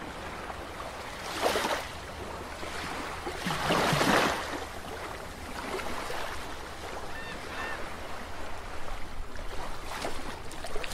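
Ocean sound effect under an animated end logo: a steady rush of water noise that swells twice, most strongly about three and a half to four seconds in, with faint short tones later on.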